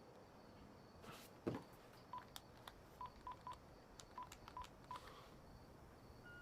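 Faint phone keypad beeps as a number is dialled: about eight short, same-pitched beeps over some three seconds. A soft thump comes shortly before them.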